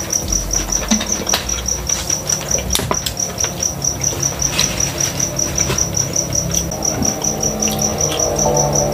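Close-up chewing and mouth sounds with a few sharp clicks, over a cricket chirping steadily about four to five times a second.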